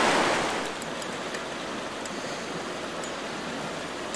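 River water rushing over riffles, a steady even rush. It is louder for the first half-second, then settles.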